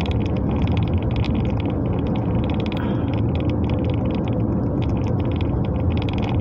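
Steady mechanical running noise, like a vehicle in motion: a continuous low rumble with a fast, even ticking on top.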